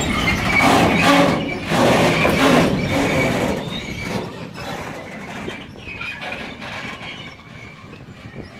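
Freight train's sliding-wall covered wagons rolling past, their wheels clattering over rail joints with a thin steady squeal. The sound fades away from about three seconds in as the end of the train moves off.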